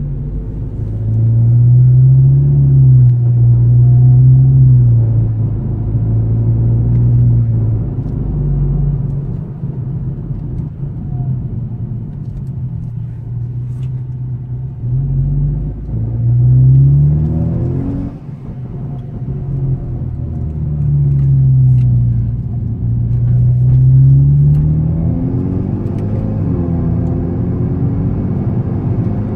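Volkswagen Golf GTI Edition 35's 2.0-litre turbocharged four-cylinder through a custom stainless-steel exhaust, heard from inside the cabin while driving. The engine note climbs with revs several times and drops back in between, with a brief dip in loudness about two-thirds of the way through.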